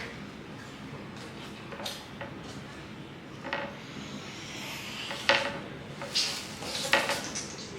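Kitchen clatter: a few short knocks of dishes, pots or utensils being handled, the loudest about five seconds in, over a steady background hiss.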